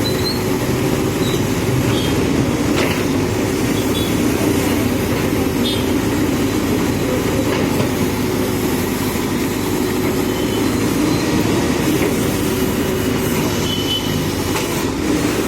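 Diesel engine of a JCB backhoe loader running steadily, with a few faint knocks.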